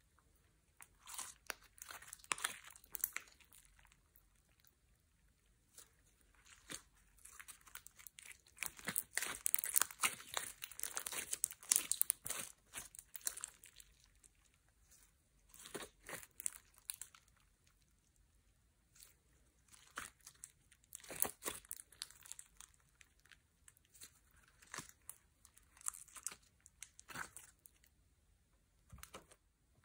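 Sticky glitter slime being stretched and folded by hand, crackling and popping in irregular clusters of small clicks, busiest in the middle, with quieter pauses between handlings.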